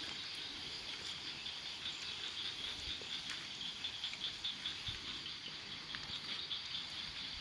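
Night insects, crickets, chirping in a steady pulsing chorus, with faint scattered ticks and taps.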